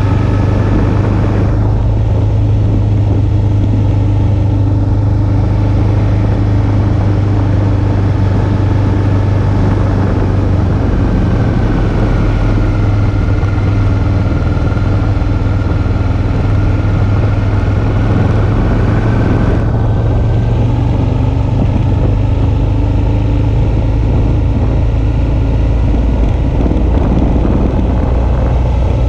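Suzuki V-Strom 650's 645 cc V-twin engine running at a steady pitch under way, its low drone holding even throughout.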